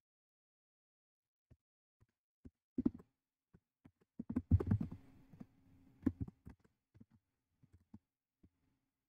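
Computer keyboard typing: scattered key clicks and knocks, a quick cluster about three seconds in and the loudest, densest run of keystrokes around four and a half seconds, with a faint low hum under it.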